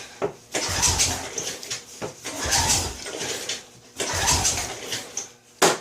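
Odes 400 ATV engine being pulled over three times by hand on its recoil starter rope, each pull cranking it through a compression stroke for a compression test with the throttle held open. A sharp click near the end.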